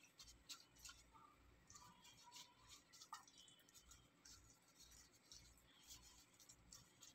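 Faint, irregular scratchy rubbing and rustling as a plastic food-prep glove works seasoning into raw chicken pieces on a plate.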